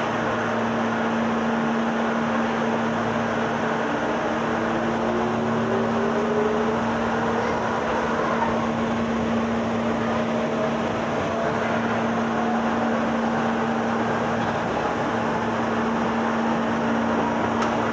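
Running sound of a Meitetsu 6000-series resistance-control electric train: steady wheel-on-rail noise with a constant hum, and a motor whine that rises slowly in pitch as the train picks up speed.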